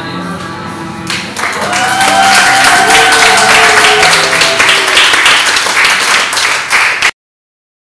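Forró dance music, which about a second in gives way to louder applause with cheering voices. The sound cuts off abruptly near the end.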